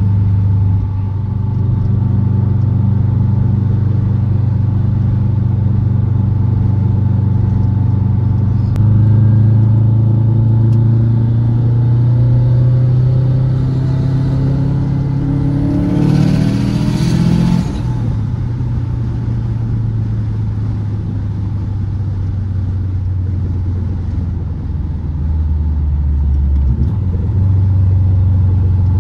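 Big-turbo Subaru WRX's turbocharged flat-four running at a steady cruise, then pulling hard from about nine seconds in: the revs climb steadily for several seconds, a loud rushing hiss comes in at the top of the pull, and the revs fall back to a steady cruise.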